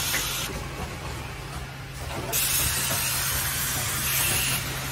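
Automatic plastic water-tap assembly machine running: a steady low hum under a hiss. The hiss drops away about half a second in and comes back about two seconds in.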